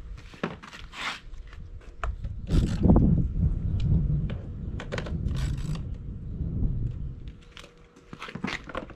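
A dirt bike's plastic side number plate and seat being fitted back on by hand: scattered clicks, knocks and scraping of plastic against the frame, with a low rumble through the middle.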